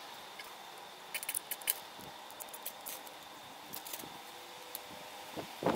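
Faint rustling and light clicks of fluffy clematis seed heads being handled and a fire steel and striker being set against the tinder, with a louder sharp sound near the end.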